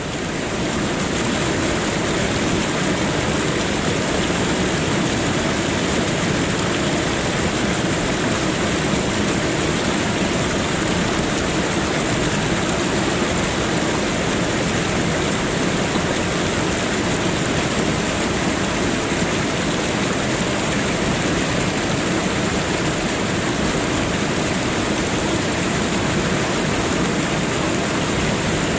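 Water fountain splashing and running in a steady, unbroken rush, fading in at the very start.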